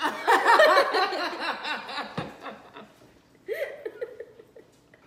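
Hearty adult laughter in quick repeated bursts for about two seconds, then a shorter laugh about three and a half seconds in.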